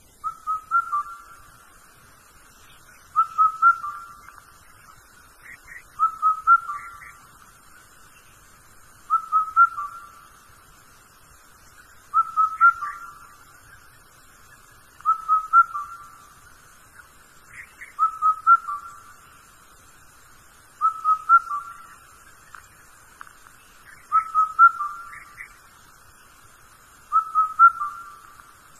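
A short whistled phrase of a few high notes, repeated almost identically about every three seconds.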